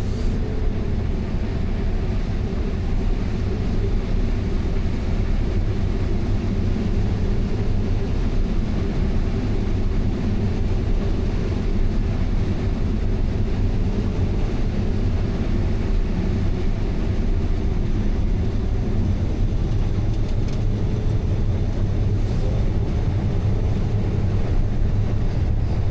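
Combine harvester running steadily through the corn: an even, low machine drone with no breaks or changes.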